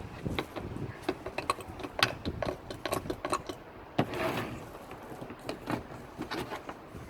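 Irregular small clicks and taps of plastic containers and utensils being handled, with a short rustling swell about four seconds in.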